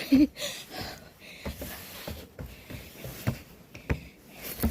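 Footsteps climbing steps, irregular knocks about once a second, with hard breathing between them and a brief voice sound at the start.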